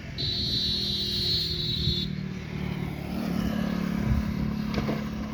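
Road noise during a test ride on an electric scooter: steady traffic and vehicle hum, with a high steady whine for about two seconds near the start.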